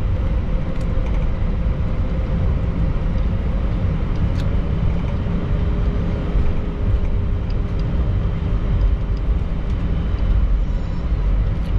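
Cabin noise inside an Airbus A320: a steady low rumble with a faint constant hum and a few light clicks.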